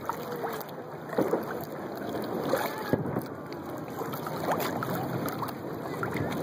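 Water sloshing and splashing against a kayak's hull, with many small clicks and drips and a dull thump about three seconds in.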